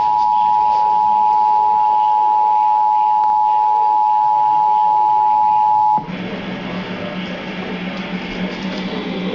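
Emergency Alert System two-tone attention signal: a steady, loud dual-tone beep that cuts off about six seconds in. It is followed by a quieter hum with hiss.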